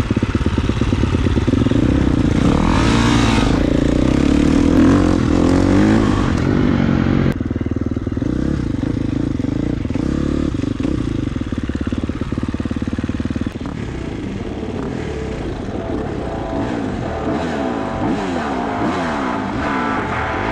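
Motocross bike engine revving up and easing off again and again, its pitch rising and falling. The sound changes abruptly about seven seconds in.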